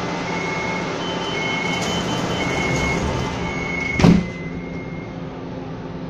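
Kaohsiung MRT train's door-closing warning tone repeating about once a second, then the sliding doors thud shut about four seconds in. After that only the train's steady hum remains.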